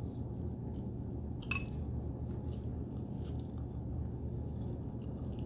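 Close-up chewing of a bite of beef burrito: soft wet mouth sounds with a few short clicks, the sharpest about a second and a half in. A steady low hum lies underneath.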